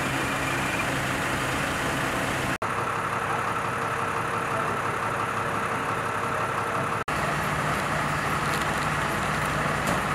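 Fire engine idling, a steady engine hum, broken by two abrupt cuts about two and a half and seven seconds in.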